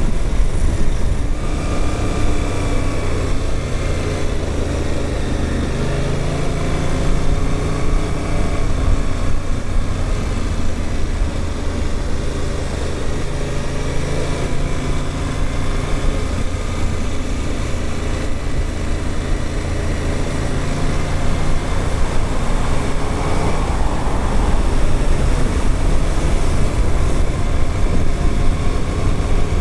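Suzuki GSX-8S parallel-twin motorcycle engine running under way, its pitch rising and falling as the bike speeds up and slows down, over a steady rush of wind. The engine is new and being run in.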